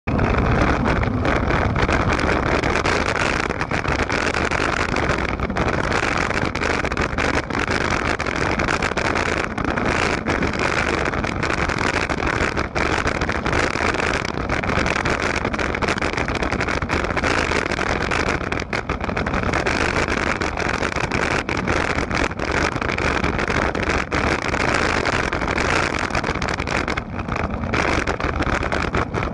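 Steady wind rush buffeting the microphone of a camera moving fast down a dirt forest trail, with frequent small knocks and rattles from bumps in the track.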